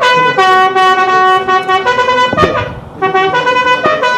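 Military bugle call played as a salute: brass holding long, steady notes that step from one pitch to the next, with a short break about two seconds in.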